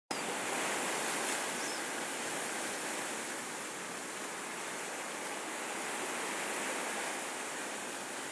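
Steady wash of sea surf on the shore, an even hiss with only gentle swells in level.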